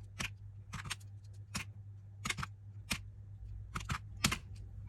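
Buttons of a cheap pocket calculator being pressed, about ten sharp clicks at an uneven pace while a sum is keyed in, over a faint steady low hum.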